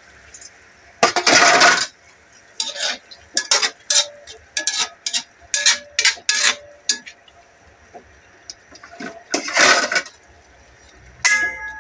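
Metal spoon scraping and clinking against the sides of a metal wok while stirring a thick chicken stew. There are two longer scrapes, about a second in and near the end, with a run of quick clinks between them and a short ringing clink at the very end.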